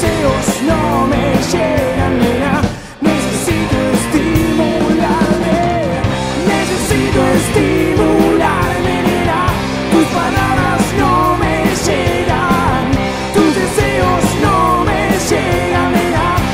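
Rock band playing live: electric guitars, electric bass and drums, with a male voice singing over them. The band cuts out for a moment about three seconds in, then comes back in.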